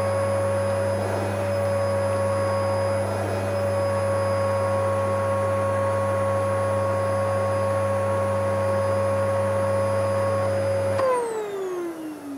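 A toy vacuum cleaner's small electric motor runs at a steady pitch over a low hum. About eleven seconds in it is switched off, and its pitch falls away as it spins down.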